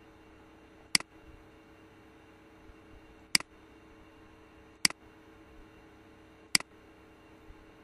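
Four sharp computer mouse clicks, spaced a second or two apart, over a faint steady hum.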